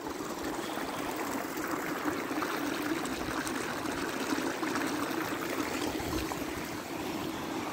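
Running water: a stream flowing steadily.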